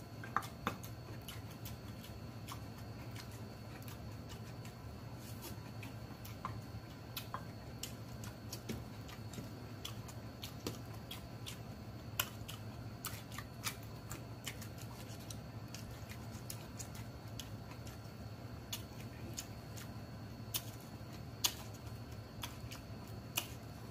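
Close-miked chewing of sausage and raw vegetables: scattered sharp mouth clicks and crunches over a faint steady hum.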